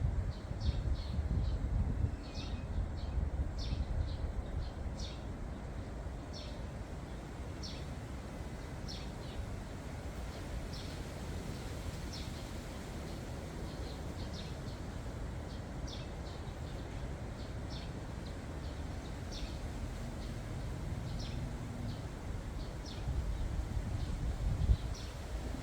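Wind blowing outdoors, a low rumble on the microphone that is stronger in the first few seconds and again near the end. A small bird chirps through it, short high notes repeating about once a second.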